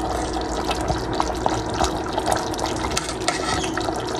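Water running from a kitchen tap and splashing into a stainless-steel sink, a steady hiss full of small patters, with a faint steady hum underneath.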